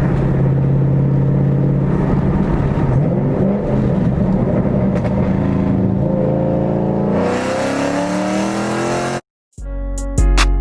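Exhaust of a 2012 Shelby GT500's supercharged 5.4-litre V8, breathing through long tube headers and an off-road X-pipe. It holds a steady drone, then rises in pitch as the car accelerates. The engine sound cuts off suddenly about nine seconds in, and guitar music starts near the end.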